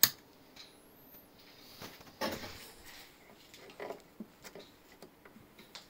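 A sharp click as a multimeter's rotary selector dial is turned. After it come scattered light knocks and rustles as wires and test clips are handled inside a wooden radiogram cabinet, the largest knock about two seconds in.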